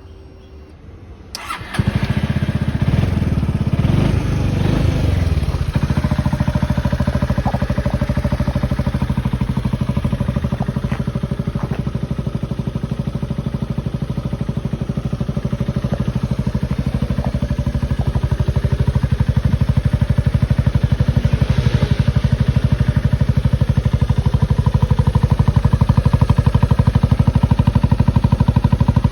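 Yamaha Maxam 250 scooter's single-cylinder four-stroke engine starting about a second and a half in, exhausting through a stock Ducati slip-on silencer adapted to fit. It catches, runs unevenly for a few seconds, then settles into a steady pulsing idle.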